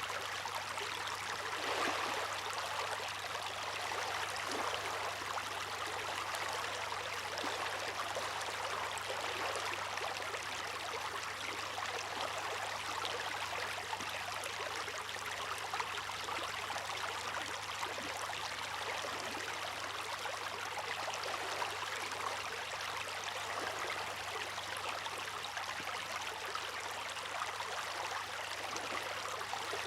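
Seawater rushing and splashing in a steady, even wash, with small swells but no distinct wave breaks.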